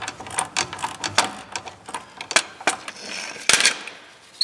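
Hand ratchet clicking with metal-on-metal clinks of tools working the bolts on a truck's wheel hub: irregular sharp clicks a few tenths of a second apart, then one louder metallic clank about three and a half seconds in.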